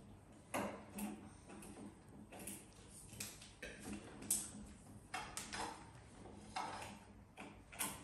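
Irregular light plastic clicks, taps and rattles as a cat paws at plastic ring-track cat toys, with one sharper click about four seconds in.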